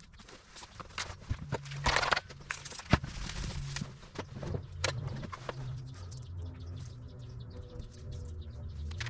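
Sheet-steel fabrication work: irregular sharp metal knocks and taps, with a short rasp about two seconds in, over a low steady hum.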